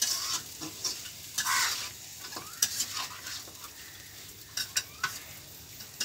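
Metal spatula stirring and scraping spice-coated chicken pieces around a wok, in irregular strokes, while the meat sizzles as it is fried in the masala.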